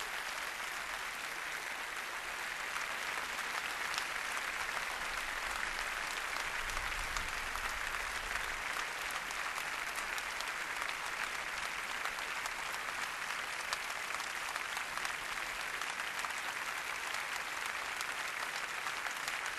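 Large crowd applauding, a dense, steady ovation that goes on without a break.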